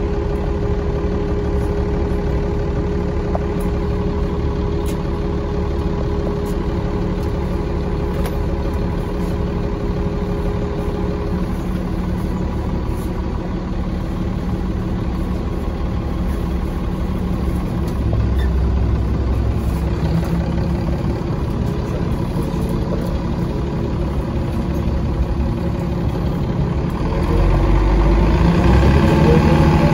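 Mercedes-Benz O405 city bus engine running steadily at idle, heard from aboard the bus. It grows louder about two-thirds of the way through, and near the end it revs up, rising in pitch and loudness.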